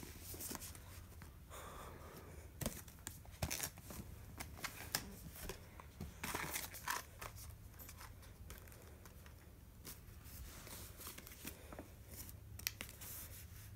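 Plastic packaging crinkling and rustling with scattered small clicks and knocks as puzzles are handled and taken out of their wrapping.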